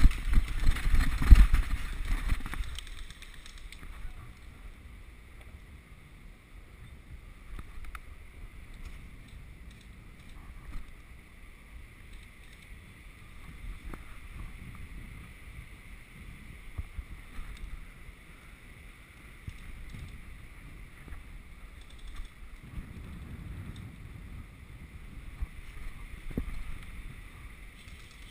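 Footfalls, clothing and gear rustle of an airsoft player running out from cover across a forest floor, loud with wind buffeting the camera microphone for about the first two and a half seconds. After that come quieter movements, with occasional small clicks and knocks.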